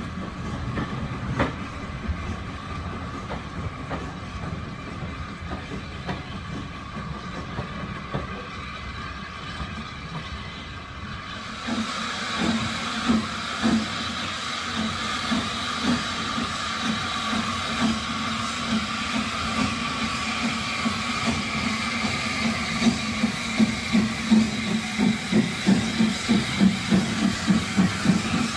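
Small steam tank locomotive working towards the listener: steam hissing, with the regular chuffs of its exhaust growing louder and stronger over the last several seconds. For the first dozen seconds only a duller, lower rumble and hiss of the train is heard, then the sound turns suddenly brighter.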